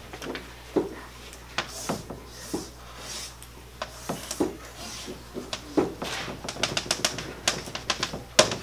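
Chalk drawing on a chalkboard: separate sharp strokes and taps as the lines of a pyramid go on, with some brief squeaks, and a quick run of short taps near the end as dashed lines are dotted in.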